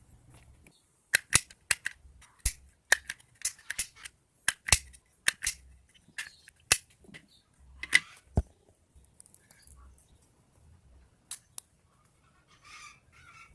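Sharp plastic clicks from a handheld manual embossing label maker being worked, its handle squeezed and its letter dial turned. The clicks come in a quick, uneven run for the first eight seconds or so, then only now and then.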